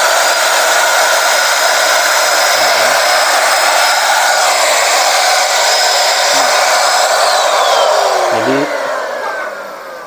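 Weyon 400-watt handheld stick vacuum cleaner running at its single speed: a loud, noisy, steady rush of suction with a high motor whine. About eight seconds in it is switched off, and the whine falls in pitch as the motor spins down.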